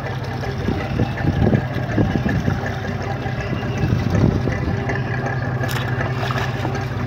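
Fishing boat's engine idling steadily, with irregular knocks and splashes as a hooked shark is hauled against the hull.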